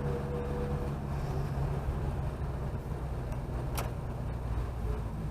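Chevrolet Chevette driving: steady engine hum and road noise, with one sharp click a little under four seconds in.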